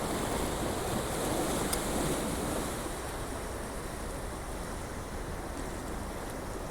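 Sea waves washing and rushing, with wind; the surge eases off a little under three seconds in.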